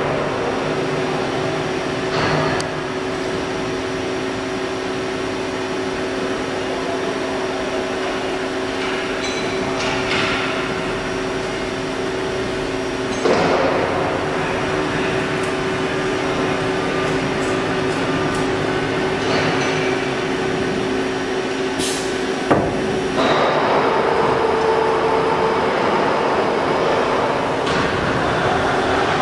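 CNC deep hole drilling machine running with a steady mechanical hum from its motors and pumps. Several sharp knocks and clanks are heard, the clearest about halfway through and again about three-quarters through, and the running sound grows louder from that second knock on.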